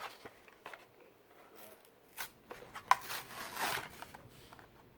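Packaging of a diecast toy car being worked open by hand: scattered small clicks and scrapes, with one sharp click about three seconds in followed by a brief rustle.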